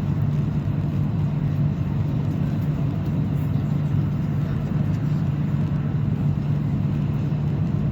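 Steady rumble of a high-speed train running at about 350 km/h, heard from inside the carriage, with a strong low hum under an even rushing noise.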